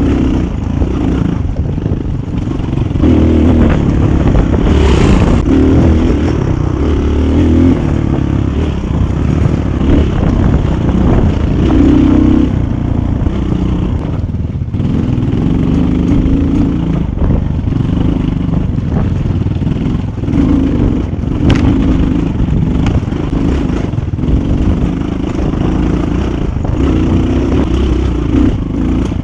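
GPX 250 motorcycle engine running under varying throttle while riding, its pitch rising and falling, with clattering knocks from the bike over rough ground.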